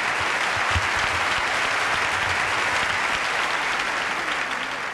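A large audience applauding, dense and steady, beginning to die away near the end.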